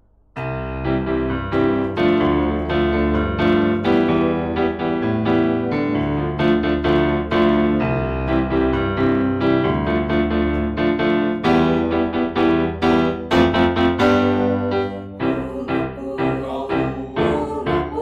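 Piano music, a run of struck notes that starts abruptly about half a second in.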